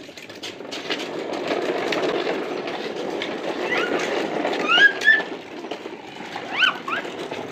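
Plastic toy dump truck rolling and rattling over rough asphalt as it is pulled on a string, a steady rumble. A few short high squeaks that rise and fall come in around the middle and near the end.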